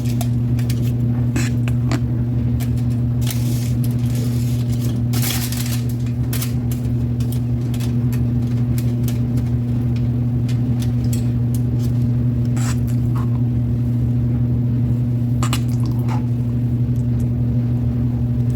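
A steady low hum, with scattered short scrapes and taps from a knife spreading mayonnaise onto slider buns.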